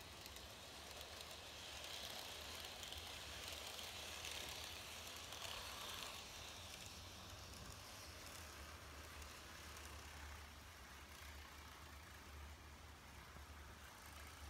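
N-gauge TOMIX 185 series model electric train running on plastic viaduct track: a faint, soft hiss of wheels and motor swells as it passes close, loudest a few seconds in, then fades as it moves away.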